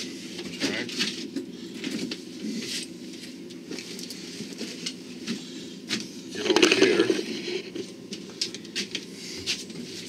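Rustling of a nylon sling pack's strap and fabric, with small clicks of its plastic buckles, as the pack is pulled on over the shoulder and adjusted close to the microphone. The loudest rustle comes about six and a half seconds in, over a steady low hum.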